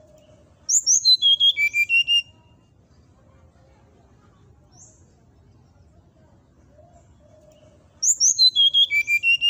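Brown-chested jungle flycatcher song: two identical phrases, each a rapid run of about a dozen sharp whistled notes stepping down from very high to mid pitch over about a second and a half. The first comes under a second in, the second near the end.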